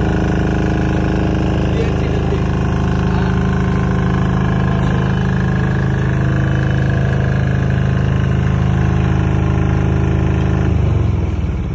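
Engine of a compact generator set in a soundproof canopy running at a steady speed, then shut off about eleven seconds in, its pitch falling as it runs down.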